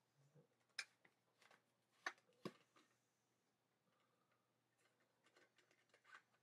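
Handheld LED spotlight being handled: a few faint, sharp plastic clicks and taps, three of them a little louder in the first half, more small ticks near the end.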